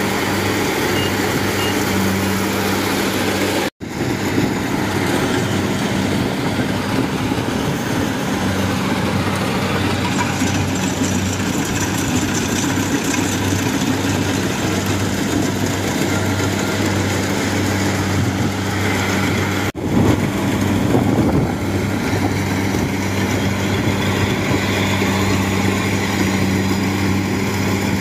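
Kubota DC-70 Plus rice combine harvester running steadily as it cuts and threshes rice, a constant engine drone. The sound breaks off very briefly twice.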